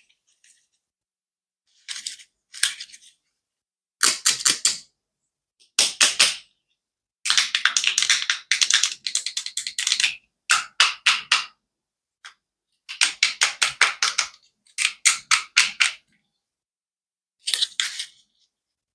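Rapid sharp clicking of a toy, in bursts of several quick clicks separated by short silent pauses, with the longest run of clicking in the middle.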